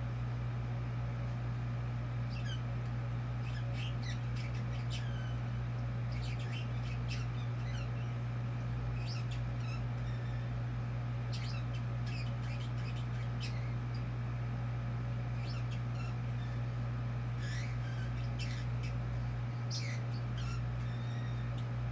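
Pet parrot chattering quietly: scattered short chirps and clicks, some in quick runs, over a steady low hum.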